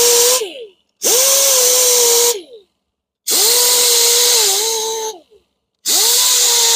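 A power tool spinning a surface conditioning disc against an alloy wheel, smoothing out grinding marks. It is run in short bursts of a second or two: a steady whine that falls in pitch as it winds down each time it is released, with short pauses between. The pitch dips briefly once partway through.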